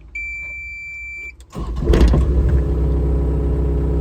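A steady electronic beep of just over a second as the key is turned on, then the Caterpillar 305E CR mini excavator's 40 hp diesel engine cranks and starts about a second and a half in, settling into a steady idle.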